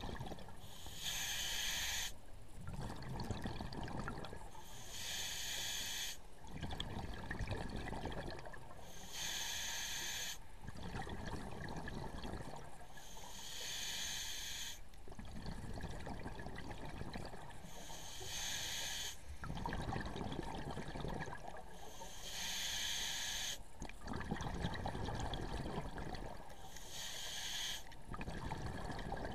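Scuba diver breathing through a regulator underwater: about every four seconds a short hissing inhalation, followed by a longer low bubbling rush of exhaled air, about seven breaths in all.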